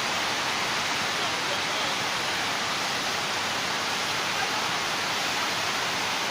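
A river in heavy flood: the steady, even rush of fast-moving floodwater.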